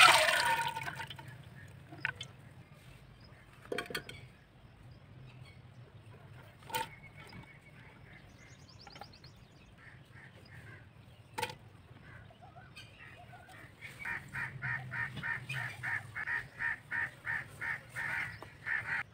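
Dry chana dal (split chickpeas) poured from a scoop into an aluminium pot, a loud brief rattle at the start that fades over about a second, followed by a few scattered knocks. Over the last five seconds a bird calls in a quick run of short repeated notes, about three a second.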